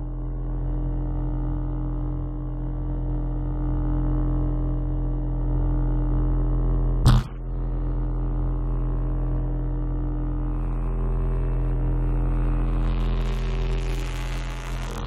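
Electronic synthesizer drone: a steady low hum of many held tones. A single sharp click cuts through about seven seconds in, and a hiss swells in over the last two seconds.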